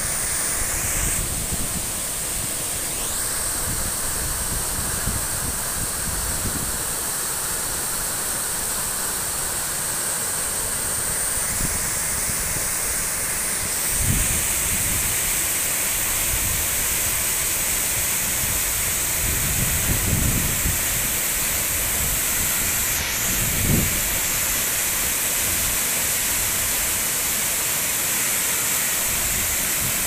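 Steady rushing of a waterfall cascading over rock ledges into a pool, with a few brief low thumps partway through.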